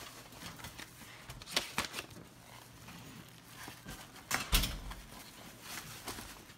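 Scattered light clicks and knocks, then a heavier thump about four and a half seconds in, as a hotel room door is opened.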